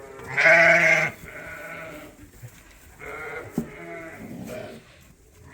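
Sheep bleating: one loud bleat about half a second in, followed by several quieter bleats.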